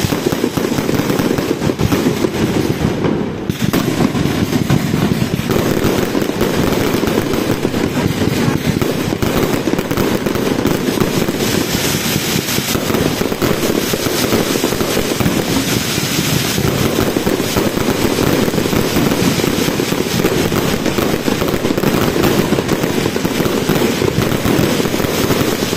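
Fireworks display at close range: a dense, continuous barrage of launches, bangs and crackling with no letup.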